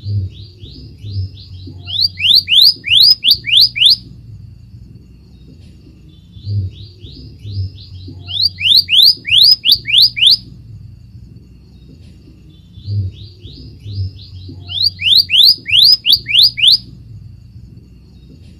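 Scarlet minivet song: a run of about a dozen quick down-slurred whistles that starts faint and builds to loud. The phrase is repeated three times, about six and a half seconds apart.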